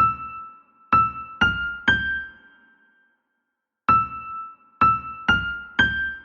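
Keyboard melody: a phrase of four single struck notes, the first two on the same pitch and the last two stepping higher, each ringing and fading. It pauses briefly, then the same four-note phrase is played again.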